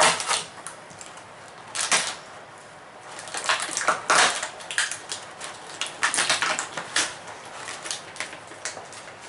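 Irregular clicks, taps and short rustles of packaging and small plastic miniature figures being handled and unpacked, coming in clusters with brief pauses between.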